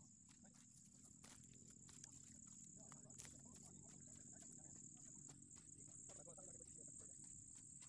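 Faint, steady high-pitched chirring of crickets, with a few soft clicks scattered through it.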